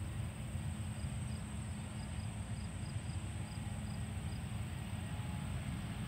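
Low, steady rumble of a distant airliner's jet engines on the runway, with faint short high chirps repeating about twice a second through the first part.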